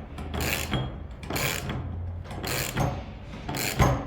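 Left-hand-thread nut on a brush cutter's aluminium nylon head being tightened with a hand tool: metallic ratcheting strokes, about one a second, with a couple of quicker clicks near the end.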